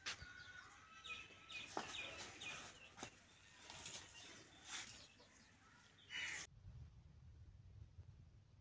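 Faint, repeated high chirping of birds. About six and a half seconds in, the sound cuts to a low hum.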